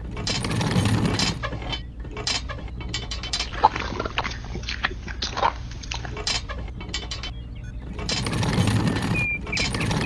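Scattered clicks, taps and scraping from hand-tipping the drum of a miniature DIY concrete mixer and pouring wet cement into a toy wheelbarrow, with a louder stretch of rustling at the start and again near the end.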